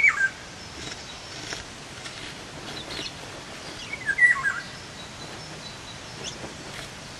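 Songbirds singing: short whistled phrases with quick up-and-down pitch sweeps, coming every second or two and loudest about four seconds in, over faint outdoor background noise.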